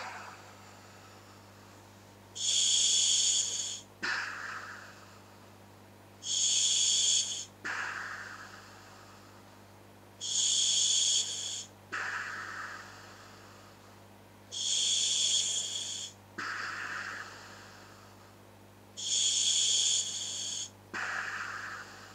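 Slow breathing through scuba regulators fitted to a hooded gas mask, five breaths about four seconds apart. Each breath is a loud hiss of about a second, followed by a lower sound that starts sharply and fades away.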